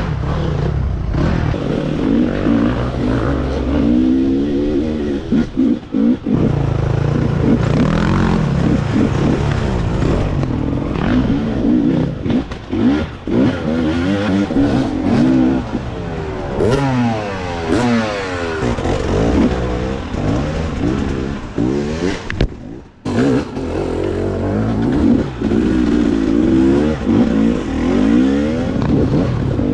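Dirt bike engines revving up and down hard and constantly changing pitch, the nearest bike loudest with others overlapping, as they climb a rough trail. The sound briefly drops out about two-thirds of the way through.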